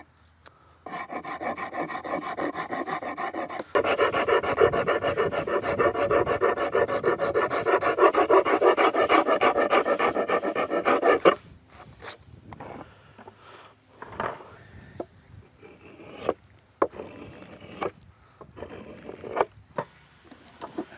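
Steel half-round rasp filing the end of a hickory axe handle, shaping the eye to fit the axe head, in steady strokes that grow louder about four seconds in and stop about eleven seconds in. After that come scattered light knocks and scrapes of wood being handled.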